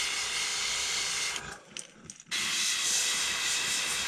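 Airbrush spraying paint with a steady hiss; the trigger is let off about a second and a half in, the hiss stops abruptly, and it starts again a second later.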